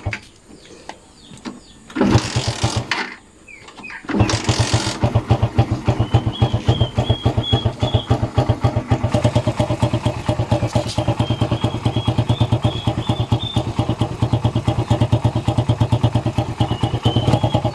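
Suzuki Raider R150's single-cylinder four-stroke engine being started for the first time after an oil change: a short burst about two seconds in, then it catches about four seconds in and runs steadily.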